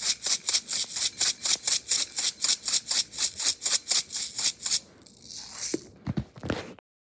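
Rainbow sprinkles rattling in a plastic container shaken rapidly, about five shakes a second, stopping about five seconds in. A few soft knocks follow before the sound cuts off.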